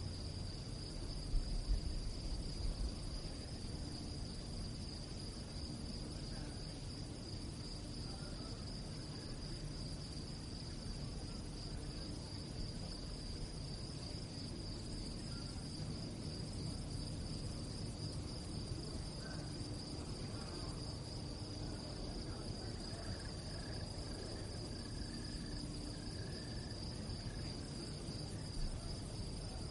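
A chorus of crickets chirping in a steady, high, finely pulsing trill, over a low rumble, with a brief louder low rumble about two seconds in.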